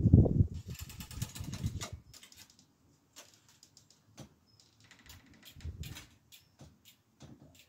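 Hands-on work on a bicycle: a dull thump of handling first, then about a second and a half of rapid clicking, then scattered light clicks and taps.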